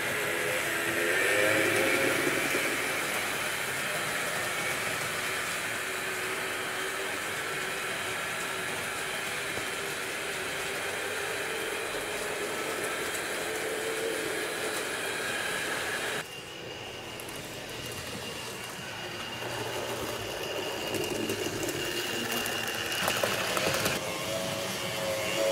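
HO scale model trains running: a steady rolling noise with a faint motor whine. The sound drops abruptly about 16 seconds in and changes again near the end.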